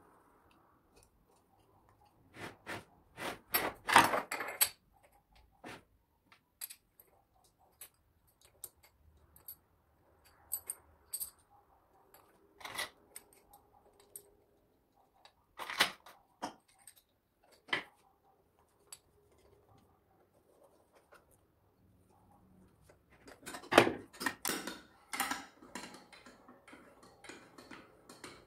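Metal clicks, taps and clinks of hand work on a small compressor being assembled, a screwdriver on its screws and its metal end plate being handled. A quick run of knocks comes about three to four seconds in, single clicks follow now and then, and a denser spell of knocking and rattling comes near the end.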